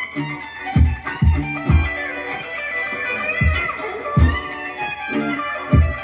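Surf-green Strat-style electric guitar playing funky chicken-pickin' licks with string bends, over a steady kick-drum beat.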